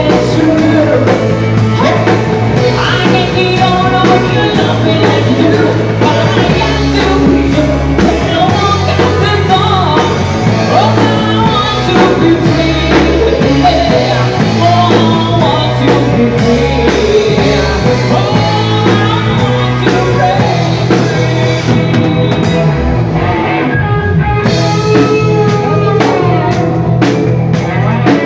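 Live band playing a song: drum kit with cymbals, guitar and a singing voice, loud and continuous.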